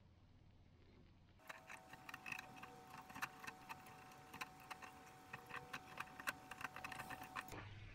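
Chestnuts roasting on a wire grill over charcoal: many quick, irregular faint clicks and ticks that start about a second and a half in and stop shortly before the end.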